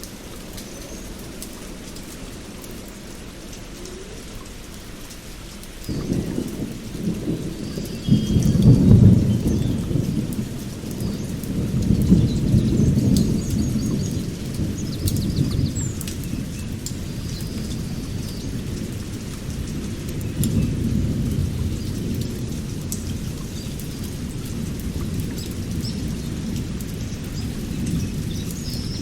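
Steady rain, then about six seconds in a roll of thunder breaks in low and heavy, peaks a few seconds later, swells again and keeps rumbling on. Birds chirp faintly above it.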